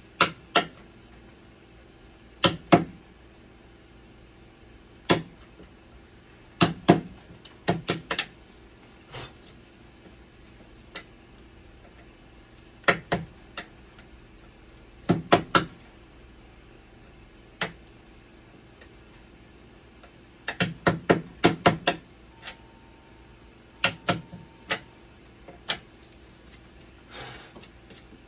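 Sharp, irregular clicks and knocks of metal hand tools (water-pump pliers among them) against a dialysis machine's blood pump cabinet as its screws are worked on. They come often in quick pairs or short runs, with a steady low hum underneath.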